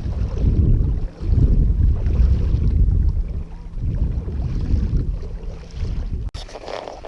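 Wind buffeting the camera's microphone: a loud, uneven low rumble that swells and dips, cut off abruptly near the end.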